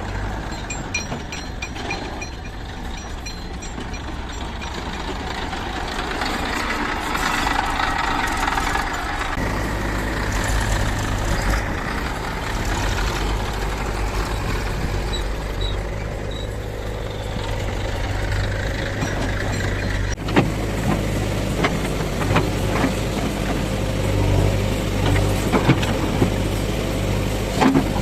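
Diesel engines of a backhoe loader and tractors running steadily while mud is loaded, with several sharp knocks and clanks from about two-thirds of the way through.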